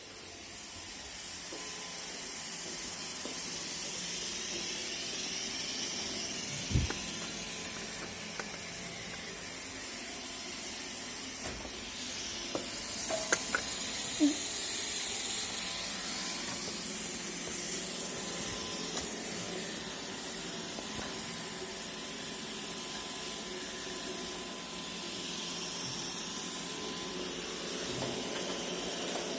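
iRobot Roomba e5 robot vacuum running: a steady hiss from its suction and brushes that slowly swells and fades as it moves about. A few short knocks and clicks break through, one about seven seconds in and a small cluster around thirteen to fourteen seconds.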